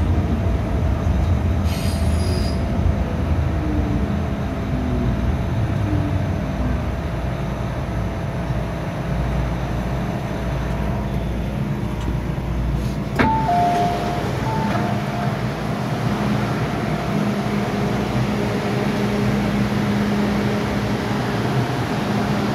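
MTR M-Train electric multiple unit slowing into a station: a steady running rumble with a motor whine that falls in pitch as it brakes to a stop. About halfway through, a sharp clunk and a few short door-chime beeps, then the standing train's steady hum.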